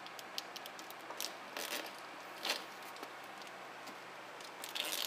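Camera wiring in its shielding being handled and squeezed past a grommet: faint rustling and crinkling with scattered small clicks, and brief scraping rustles about a second and a half in, two and a half seconds in, and near the end.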